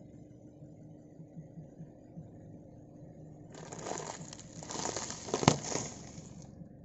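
Car tyre rolling over sealed plastic biscuit and snack packets, crushing them with about three seconds of crackling and crunching that begins about halfway in. A sharp pop stands out near the end as a packet bursts.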